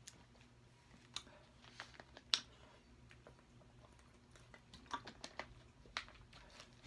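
Scattered soft clicks and taps of close-miked eating and of a plastic water bottle being handled, with a sharp tap about two seconds in and a cluster of taps around five seconds as the bottle is drunk from and its cap screwed back on.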